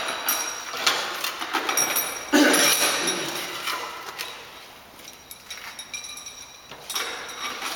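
Corded electric drill working into the floor in short bursts, its motor winding down in falling pitch after being released, with scattered clicks and knocks between the bursts.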